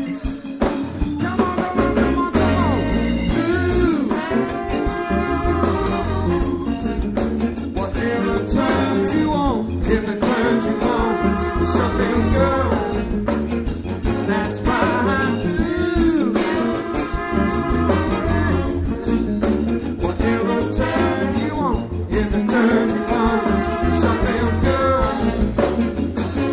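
Live funk band playing, with a trombone taking a solo in rising and falling phrases over a steady beat of bass and drums.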